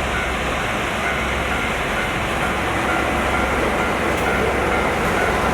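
A JR Tokushima Line diesel railcar's engine running steadily, an even noise with a few faint steady tones and no breaks.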